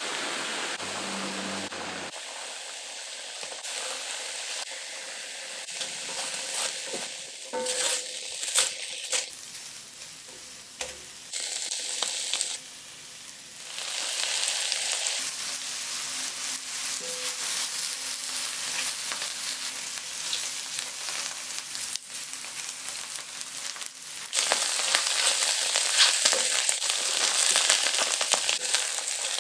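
Mixed wild mushrooms sizzling as they sauté in a pan, with a steady frying hiss and scattered small crackles. It grows louder for the last few seconds, while a silicone spatula stirs the browning mushrooms.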